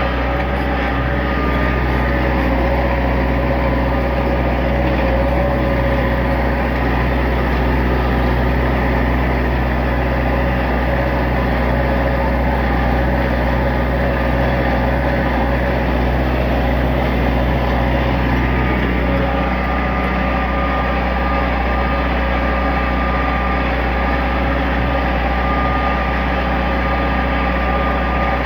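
Tractor engine running steadily under load while dragging a chained oak log, held at a working speed of about 1700 RPM; its note changes slightly about two-thirds of the way through.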